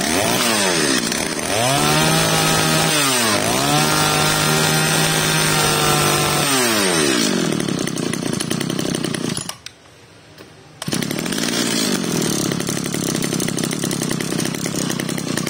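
Kawasaki TG33 brush cutter's 33cc two-stroke engine revved up hard on the throttle, dipping briefly about three seconds in, then held high until it falls back to a rough idle. About ten seconds in it cuts out for about a second, then runs again at idle.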